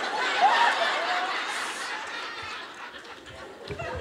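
An audience laughing together, loudest at first and dying down over about three seconds before picking up again near the end.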